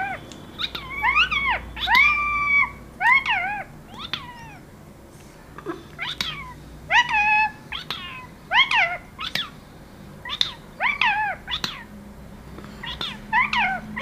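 Indian ringneck parakeet calling: a run of about twenty short, high-pitched calls, each rising then falling in pitch and coming in small clusters, with one held longer about two seconds in.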